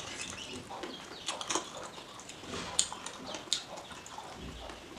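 Wet chewing and lip-smacking from someone eating oily chicken curry by hand, as irregular soft clicks with a few sharper smacks.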